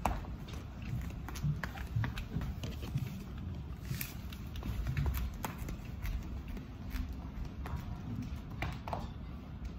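Irregular footsteps and light knocks on a wooden stage floor, with low bumps of movement close by.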